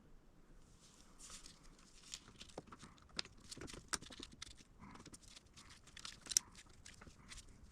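Irregular light clicks, taps and rustling scrapes of hand tools and small engine parts being handled during engine reassembly, with one sharper click about six and a half seconds in.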